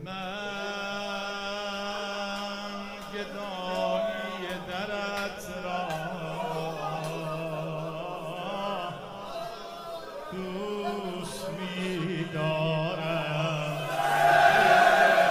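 Male eulogist chanting a drawn-out, melismatic madahi (Shia lament) line for Imam Hussain over a steady low drone, the voice wavering and bending in pitch; it swells louder near the end.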